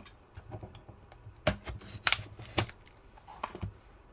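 Hands handling trading-card packs on a tabletop: scattered clicks and taps, with three sharper snaps in the middle.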